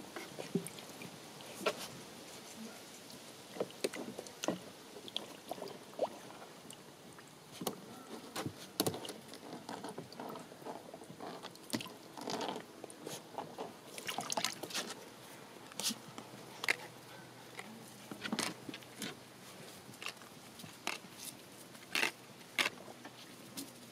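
Water splashing and sloshing in a plastic tub as a hand draws a fish through it. Scattered short clicks and scuffles come from two Sheltie puppies pawing and snapping at the fish.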